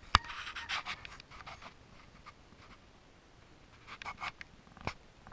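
Close rustling and rubbing handling noise, with a sharp click just after the start and another near the end, and a quiet stretch in between.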